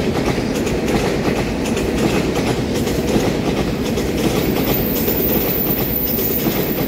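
A twelve-car EMU3000 electric multiple unit running past at close range, with a steady, loud rumble of its wheels on the rails and faint repeated clicks as the bogies pass.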